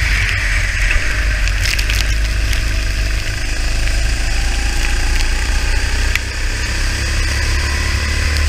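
Onboard go-kart engine running on a wet track, its pitch rising and falling gently through the corners. Under it sit a heavy low rumble and a steady hiss, with a few short clicks.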